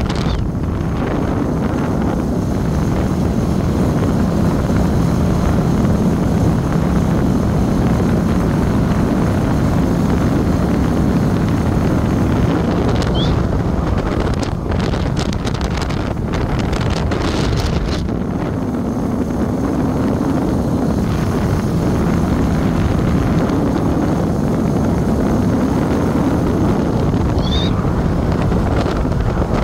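Wind buffeting the microphone of a moving motorbike at road speed, over a steady low drone of engine and tyres on asphalt.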